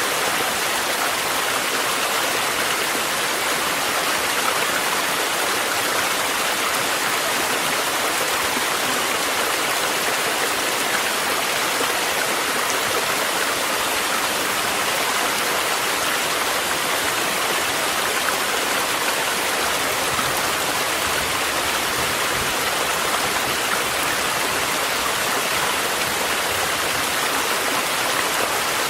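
Mountain stream rushing steadily, layered with steady rainfall; an even, unchanging wash of water sound.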